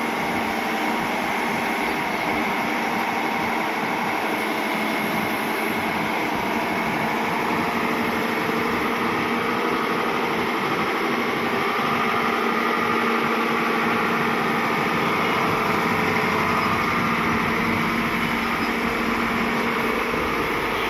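Hyundai crawler excavator's diesel engine running steadily under load as the machine swings its upper body and moves its boom. A higher whine comes in about halfway through.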